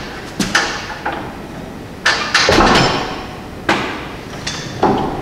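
Metal clanking and knocking as a steel jack handle and floor jack are worked under a heavy steel workbench: a handful of sharp, ringing knocks spaced irregularly, with a longer scraping clatter about two and a half seconds in.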